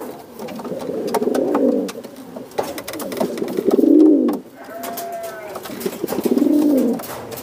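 Domestic pigeon cooing in courtship: about three low, rolling coos, each rising and falling, with a few light clicks between them.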